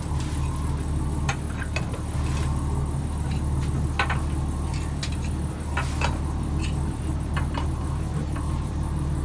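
A steady low motor hum runs throughout, with scattered sharp clicks as small ceramic tiles are handled, knocked together and set down on a countertop.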